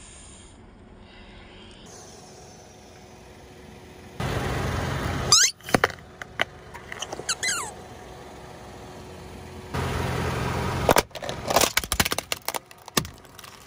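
Car tyre rolling slowly over toys on asphalt. About five seconds in, a rubber squeaky toy under it lets out a couple of sliding squeals. Near the end, a hard plastic toy cart cracks and snaps apart in a quick run of sharp breaks.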